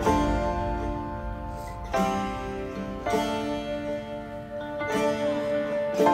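Background music of a plucked-string instrument playing sustained chords, with a new chord struck every one to two seconds.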